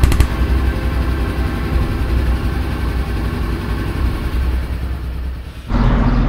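Motorcycle engine running under a steady low rumble of road and wind noise. Near the end it cuts off abruptly to a different, steadier engine hum.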